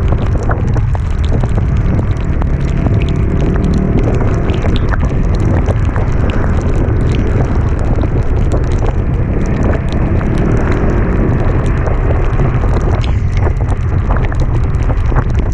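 Heavy wind buffeting on the microphone over a vehicle's engine running steadily while riding uphill, with scattered sharp ticks throughout.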